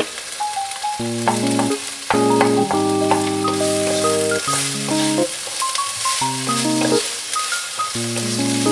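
Diced chicken, onion and minced garlic sizzling in a nonstick frying pan as a wooden spatula stirs them: a steady frying hiss. Background music with a simple melody of short notes plays over it.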